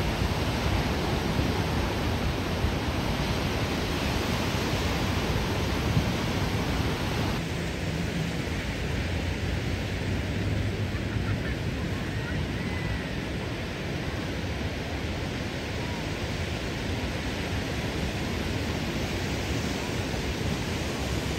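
Steady rushing noise of ocean surf breaking on the beach, its hiss easing slightly about seven seconds in.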